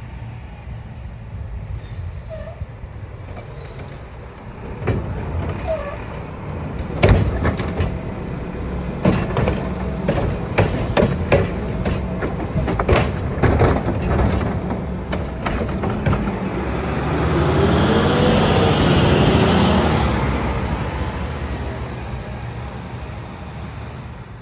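Mack LR garbage truck with a Curotto Can arm running as it empties a wheeled cart, with a run of sharp bangs and knocks from the arm and the cart. Then the engine revs up, rising and falling in pitch with a hiss, as the truck pulls away, and the sound fades near the end.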